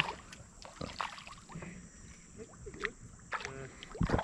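Scattered light knocks and clicks in a flat-bottom boat, with a louder low thump near the end.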